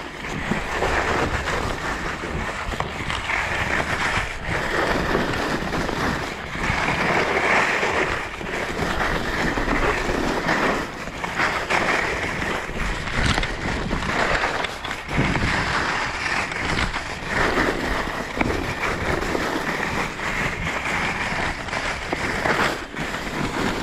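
Skis scraping and hissing steadily over chopped-up, lumpy spring snow during a downhill run, with wind rushing on the GoPro's microphone. Now and then a short knock as the skis hit clumps.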